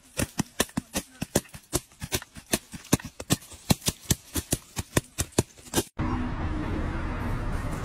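Rapid, sharp knocks, about three to four a second and irregular, as dried sunflower heads are beaten with a hand tool to knock out the seeds. About six seconds in they stop abruptly and a steady rustling noise takes over.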